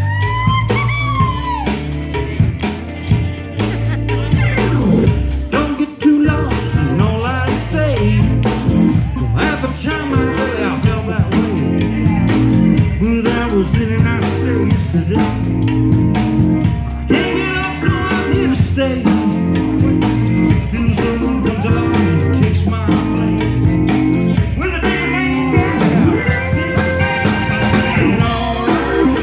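A live rock band playing: drum kit, electric guitar and keyboards together in a steady groove.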